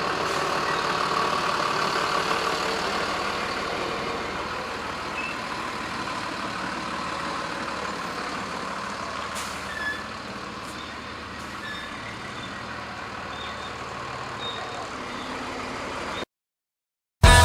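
Steady rushing noise with a few faint short high chirps, easing off slightly, then cutting off abruptly about a second before the end.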